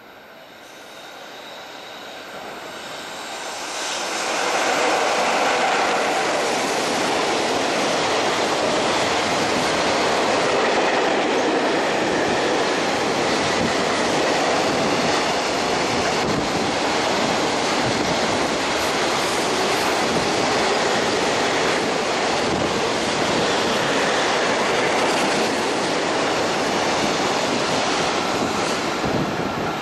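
Container freight train hauled by a JR Freight EF66 electric locomotive approaching and then passing close, growing louder over the first four seconds. The wagons' wheels then clatter steadily over the rails as the long rake of containers runs past.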